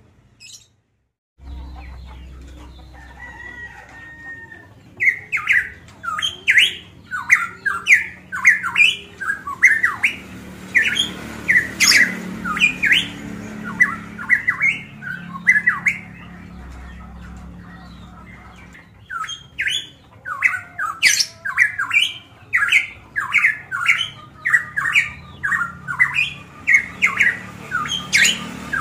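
Caged pitohui (cucak emas papua) singing loudly: a fast run of short, sharp notes, two or three a second, that stops for a few seconds halfway and then starts again.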